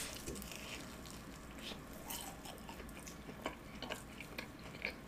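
Faint close-up chewing of a bitten fried cheese ball (BBQ golden-egg cheese ball), a soft mouth-noise sound with a few short wet clicks and smacks in the second half.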